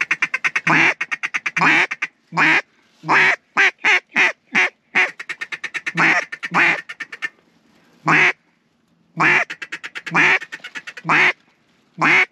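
Mallard duck call blown close by, working ducks that are in range. It gives loud hen-mallard quacks: single drawn-out quacks mixed with fast runs of short chattering notes, with brief pauses between sequences.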